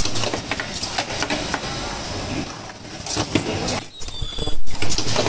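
Automatic face mask production line running, its pneumatic ear-loop stations clicking and clattering rapidly and without pause. A brief high-pitched squeal comes about four seconds in.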